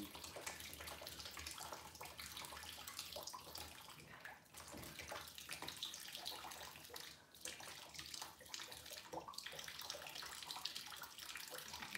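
Water running and splashing through an aquarium siphon hose as it draws water and debris out of a reef tank, with two brief drops in the flow about four and a half and seven seconds in.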